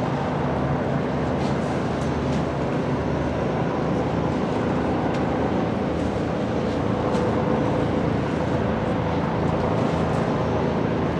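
Steady low drone of ship engines carrying across the harbour water, with a few faint clicks now and then.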